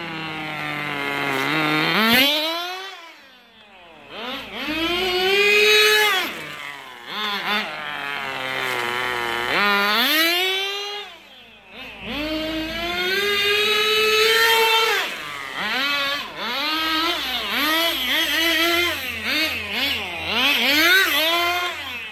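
Tamiya TGS radio-controlled car's small nitro engine revving up and easing off again and again as the car is driven about, its high-pitched note rising and falling, with two brief drops in loudness about three and eleven seconds in.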